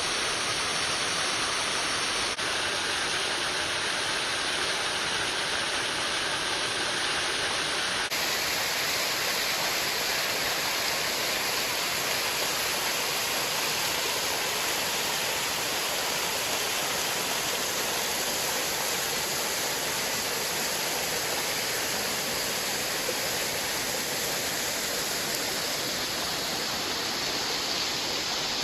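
Water of a mountain creek rushing over cascades and falls, a steady wash of noise. Its tone shifts abruptly about 2 seconds and 8 seconds in.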